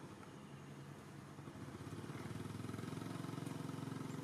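A motor engine running steadily nearby, getting louder about two seconds in.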